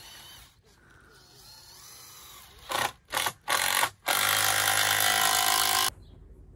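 Cordless drill working into the timber bracing of a bell tent frame: three short bursts, then a steady run of about two seconds that stops abruptly.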